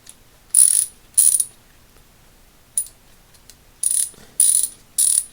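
Freshly reassembled Pittsburgh Pro thumbwheel ratchet ratcheting in short bursts of rapid clicks, six bursts in all, as the pawl mechanism is tested.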